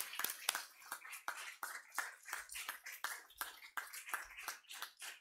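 Audience applause, thinning to scattered claps and dying away near the end.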